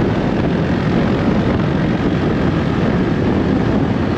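Loud, steady rush of wind buffeting the microphone on a moving vehicle, with a low rumble underneath.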